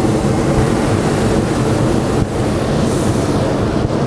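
Hot air balloon's propane burner firing close overhead: a loud, steady blast with no break.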